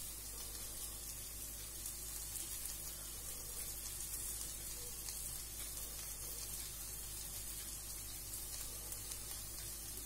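Onion and tomato masala sizzling in a pan on the stove: a steady, low frying hiss with no clear knocks.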